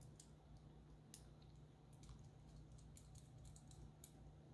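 Near silence with a few faint clicks of a small metal spacer and screw being turned and handled by fingers.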